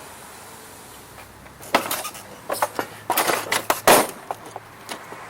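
A quick flurry of sharp clinks and knocks from tools and hard parts being handled during engine work, starting about a second and a half in, with the loudest knock near the end.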